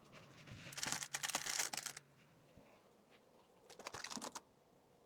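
Small items and plastic packaging handled close to the microphone: quick crinkling and light clicks in two bursts, a longer one near the start and a shorter one near the end.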